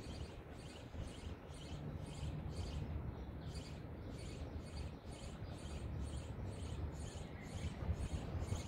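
Steady low rumble of room noise with a rhythmic high chirping repeating about three times a second.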